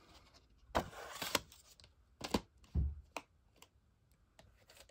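A plastic VHS cassette and its case being handled: a rustling slide about a second in, a few sharp clicks and a soft thump near the middle, then lighter clicks.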